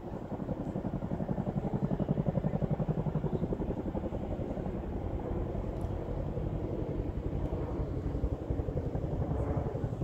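Chinook tandem-rotor helicopter overhead, its rotors making a rapid, even thudding beat. It grows louder about a second in, then holds steady.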